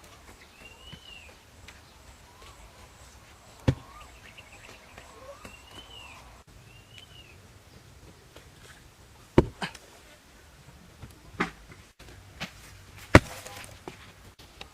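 Four sharp knocks, like tool strikes, a few seconds apart, the last one loudest. Between them come a few short rising-and-falling bird chirps over a quiet outdoor background.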